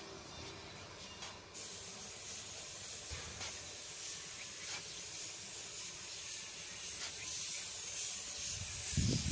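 Steady high hiss of outdoor background noise with a few faint ticks, and a short low thump near the end, the loudest sound.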